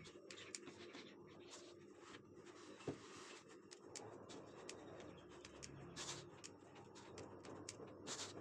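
Soft, irregular scraping and tapping of a wire whisk against a silicone baking mat and bread dough as the dough is worked, with a sharper click about three seconds in, over a faint steady hum.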